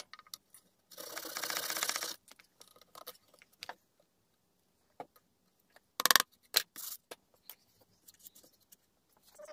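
Hand-work noises on a workbench: a rasping scrape lasting about a second, then scattered knocks and clatters, loudest a little past the middle, as tools and a glue bottle are picked up and set down.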